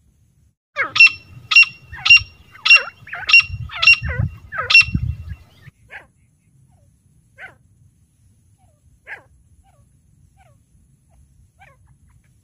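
Female grey francolin calling: a run of about eight loud, sharp, evenly spaced notes, then a few faint single notes.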